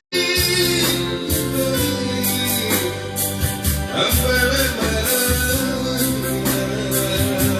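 Music with a steady beat, guitar and a singing voice, cutting out for a split second right at the start.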